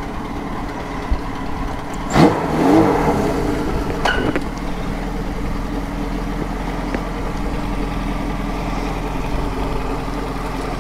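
Kawasaki KZ1000's air-cooled inline-four idling steadily, with one quick rev about two seconds in and a sharp click about four seconds in.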